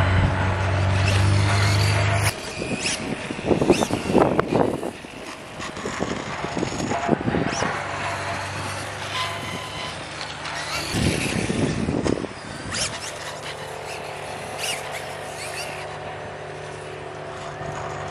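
Losi Promoto-MX quarter-scale electric RC dirt bike riding around: its motor whine rises and falls with throttle, with the loudest swells about three to five seconds in and again around eleven seconds. A steady low hum in the first two seconds cuts off suddenly.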